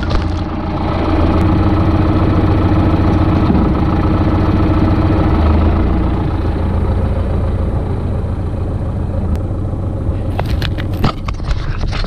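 John Deere tractor's four-cylinder turbo diesel running steadily under load while pulling a cultivator; it gets louder about a second in. Near the end comes a short cluster of knocks and rattles.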